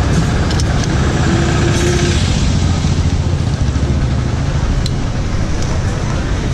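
Hero XPulse 200's single-cylinder engine idling steadily through an aftermarket slip-on silencer that is held onto the header pipe by hand to test its sound.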